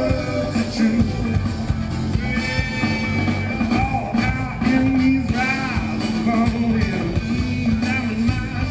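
Band music with a steady rock beat, bass and guitar, and a sung melody without clear words over it.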